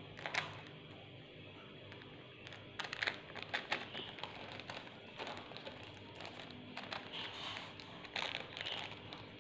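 Baking paper crinkling and rustling in short, scattered bursts as a sponge roll cake is rolled up in it by hand.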